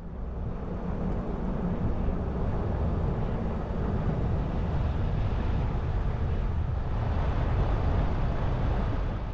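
Van driving on a rough dirt road: a steady low rumble of engine and tyres that grows louder over the first two seconds, then holds.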